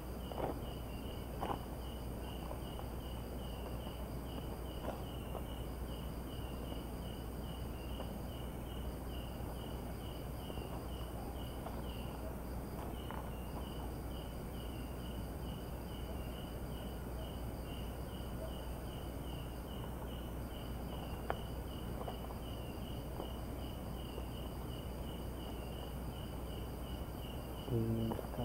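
Night insects: crickets chirping steadily at about four chirps a second, with a higher insect trill running in long stretches broken by short pauses. A short low sound rises briefly near the end.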